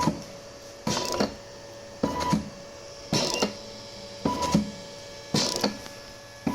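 Low-cost mechanical ventilator's motor-driven mechanism cycling about once a second. Each stroke is a short whirring burst that ends in a click, over a faint steady hum.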